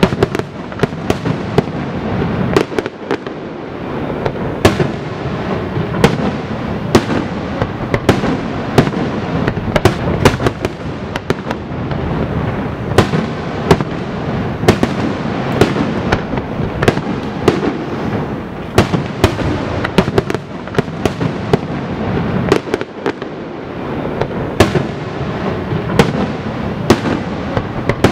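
Fireworks display in a rapid barrage: sharp bangs and cracks going off irregularly, several a second, over a continuous wash of noise.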